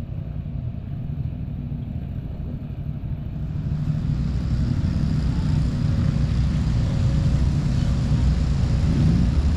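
A vehicle running, a steady low rumble of engine and drive noise that gets louder about four seconds in.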